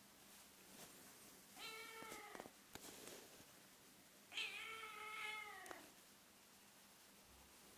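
Ragdoll-Birman kitten meowing twice: a short meow a couple of seconds in, then a longer, louder one just past halfway through.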